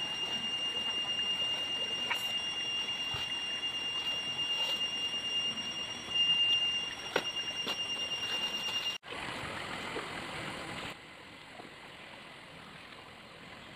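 A steady, high-pitched insect drone, with a few light clicks over it. The drone breaks off abruptly about nine seconds in, leaving a quieter outdoor background.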